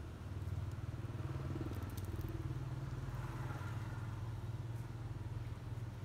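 A small engine running steadily nearby, a low droning hum.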